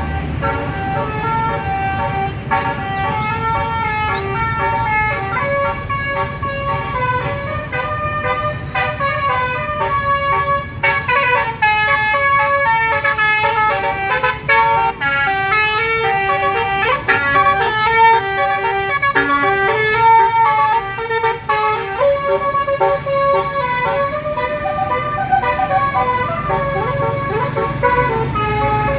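Bus telolet horn, a multi-tone musical air horn, playing a long tune of stepping notes that grows busier and faster in the middle, over the low steady running of the bus engine.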